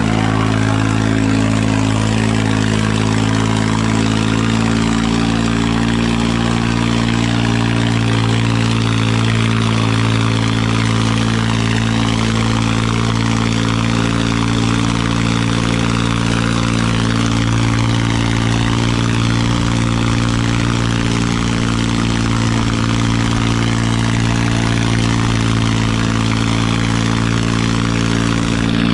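Massey Ferguson 9500 tractor's diesel engine running at a steady speed under heavy load as it drags two 8x8 disc harrows through ploughed soil.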